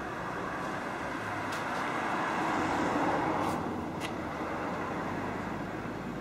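A car passing by on the road, its tyre and engine noise swelling to a peak about three seconds in and then fading.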